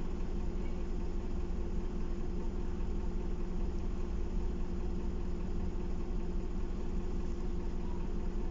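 Optare Solo midibus's diesel engine idling steadily, heard from inside the passenger saloon as a constant low hum.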